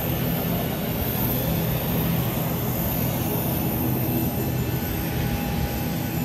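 Steady jet aircraft noise: a continuous rush of engine and air noise with a low hum and a faint high whine, holding an even level.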